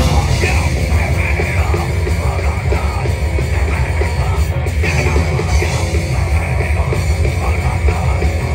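Loud rock music with a heavy bass, played at high volume.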